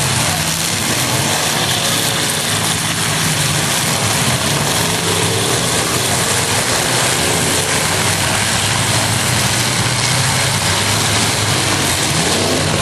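Demolition derby truck engines running steadily, a dense continuous engine noise with a low, even drone and no single crash standing out.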